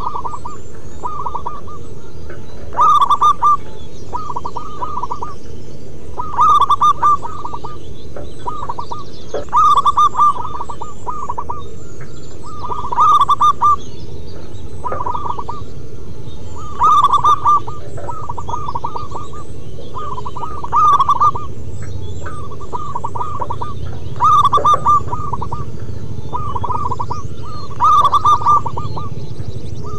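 Zebra doves (perkutut) cooing: repeated phrases of quick staccato coos, a loud phrase about every three to four seconds with softer phrases between, over a steady low background rumble.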